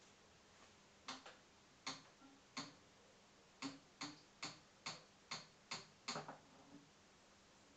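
Suzuki DL650 V-Strom front fork knocking: sharp, separate knocks with a short ring, three spaced about a second apart, then a faster run of about two or three a second. The knock in the fork is the fault being shown.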